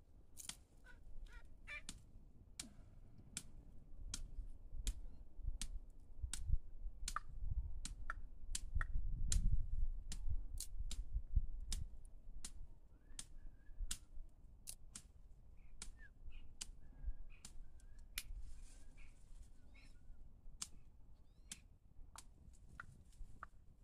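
Irregular sharp clicks and snaps, several a second at times, over a low rumble of wind on the microphone that swells in the middle.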